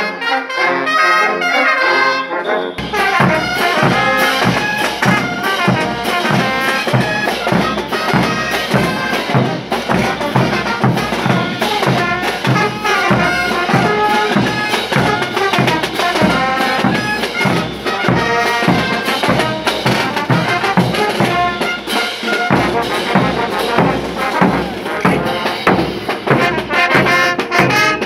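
Brass band playing morenada music: trumpets and other brass horns over a steady beat of bass drums and crash cymbals. The drums' low thump comes in about three seconds in.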